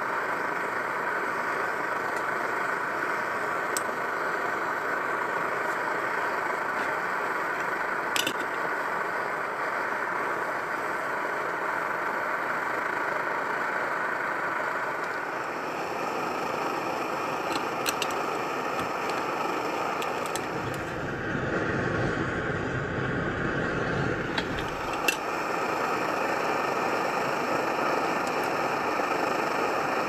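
Optimus Svea brass white-gas stove burning steadily under a pot of snow being melted. A few light metal clicks, and a deeper rumble for a few seconds past the middle.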